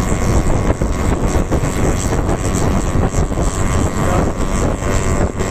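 Yamaha RX100's single-cylinder two-stroke engine running steadily through its stock exhaust, a fast, even pulsing.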